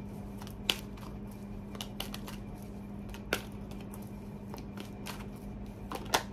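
Tarot deck shuffled by hand: a run of soft card flicks and slaps, with three sharper snaps, one near the start, one midway and one near the end, over a steady low hum.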